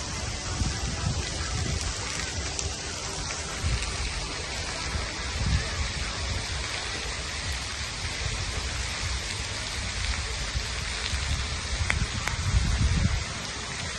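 Splash-pad water spraying and pattering onto wet concrete, a steady rain-like hiss, with gusts of low rumble, the strongest near the end.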